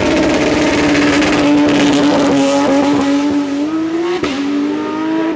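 Hillclimb race car accelerating hard off the start line at high revs, with tyre squeal; the engine note climbs and breaks sharply at a gear change about four seconds in.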